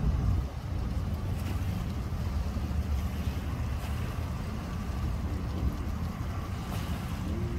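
Steady low rumble of an idling engine at a boat ramp, with wind buffeting the microphone.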